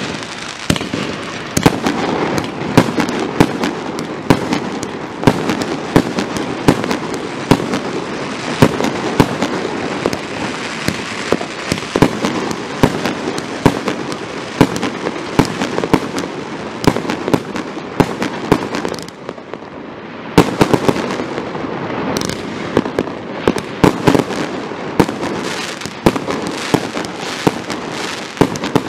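Primed Pyrotechnics Glittering Prize A 56-shot firework cake firing: a fast, dense string of super loud shots and aerial bursts, with a short lull about nineteen seconds in before the volley picks up again.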